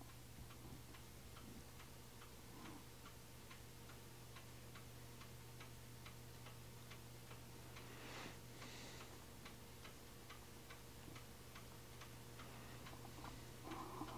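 Near silence with faint, evenly spaced ticking, a few ticks a second, over a steady low hum, and a brief soft hiss about eight seconds in.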